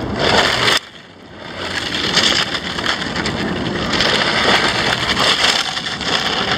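Brushless electric RC touring car tearing across loose gravel: tyres crunching and spraying stones, with a faint whine from the motor. The sound drops away suddenly just under a second in, then builds back up and stays loud.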